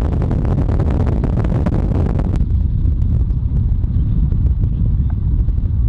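Storm wind buffeting the microphone: a loud, steady low rumble with a crackly hiss on top. About two and a half seconds in the hiss cuts off suddenly, leaving the low rumble.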